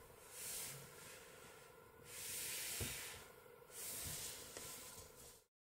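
Faint hissing noise in three soft swells of about a second each, cut off abruptly near the end.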